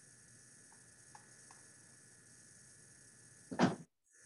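Low steady hum and hiss of an open microphone on a video call, with a few faint clicks. About three and a half seconds in comes a short, loud noise, and then the sound cuts out completely for a moment.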